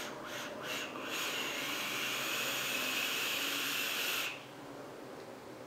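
Hiss of an e-cigarette being drawn on: a few short hisses, then one steady hiss about three seconds long as the coil fires and air is pulled through the atomizer, cutting off suddenly about four seconds in.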